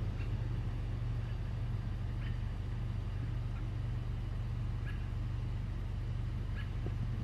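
A steady low hum, like a vehicle engine running, holds at an even level throughout. Five faint short high sounds come over it, one every one to two seconds.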